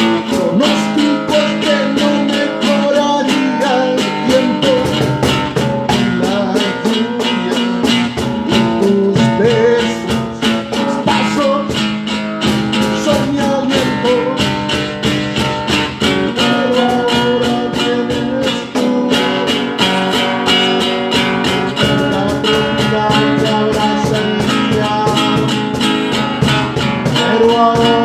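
Guitar-led music playing steadily.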